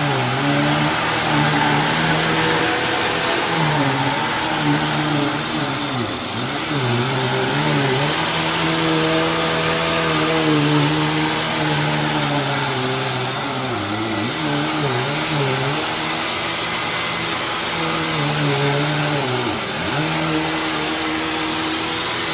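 Hoover WindTunnel Lite upright vacuum cleaner running: a steady motor hum under a loud rush of air. The motor pitch dips and wavers briefly several times.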